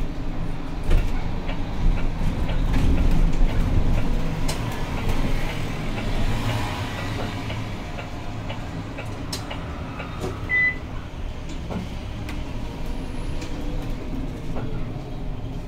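Cabin noise inside a Zhongtong LCK6113SHEVG city bus under way: a steady low rumble of the drivetrain and road, with scattered rattles and clicks. There is one short high beep about ten and a half seconds in.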